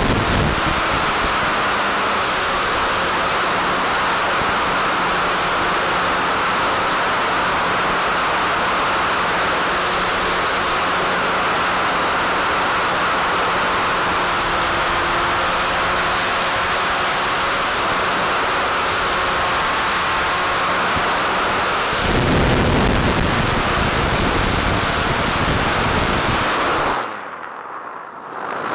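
Steady loud rushing noise from an electric RC foam plane in flight, picked up on board: the propeller and electric motor with air streaming past, with a faint steady hum under it. About 22 s in it grows coarser and heavier in the low end. Near the end it drops sharply quieter for about a second and a half, with the propeller standing still.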